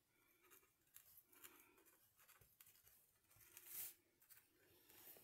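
Near silence with faint, intermittent scratching of a white Posca paint-marker tip drawing on a card tag, one stroke a little louder near the end.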